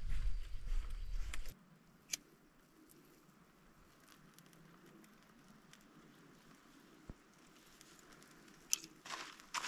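Wind rumbling on the microphone for the first second and a half, then a quiet background with a few faint snaps of dry twigs being handled. Near the end come a few sharp scrapes and crackles as a bundle of dry twigs is set alight.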